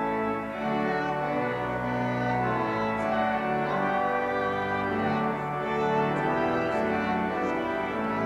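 Pipe organ playing a hymn in full sustained chords, the chords changing every second or so.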